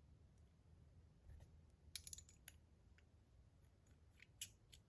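Near silence with a few faint sharp clicks, about two seconds in and again near the end: custom buttons being handled and fitted onto a zirconium fidget spinner.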